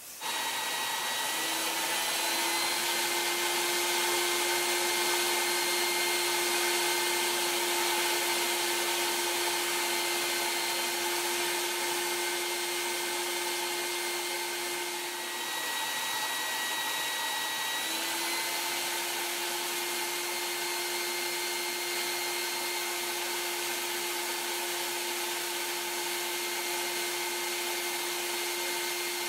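Shop vac running steadily, its hose held to a Lego four-cylinder piston engine to drive it: a loud rush of air with a steady whine. The whine drops a little in pitch and level about 15 seconds in, then comes back up near 18 seconds.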